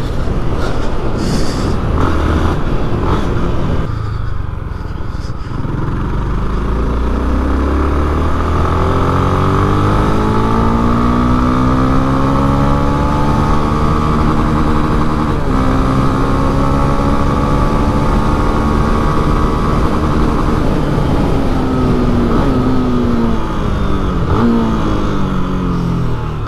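Honda Twister motorcycle's single-cylinder engine pulling under way: its pitch climbs steadily, breaks briefly for a gear change about halfway through, holds, then falls off near the end, over low wind and road rumble.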